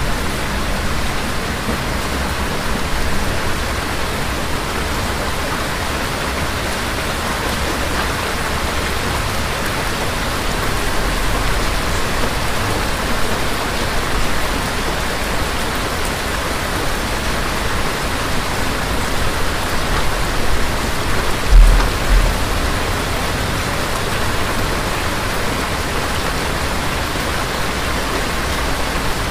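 Steady rain falling in a thunderstorm, with low thunder rumbling now and then and one louder, short boom of thunder about 22 seconds in.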